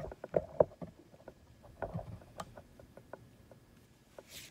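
Scattered light clicks and taps with faint rustling, more of them in the first second: handling noise from a phone held up at arm's length.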